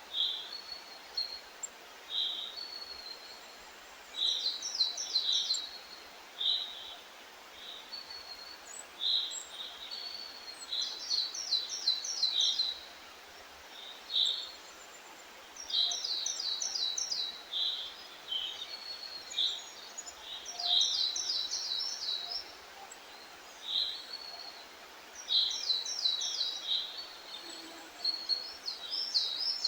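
Songbirds singing over a faint steady hiss: short clear notes repeated every second or two, and every few seconds a quick run of rapid high notes.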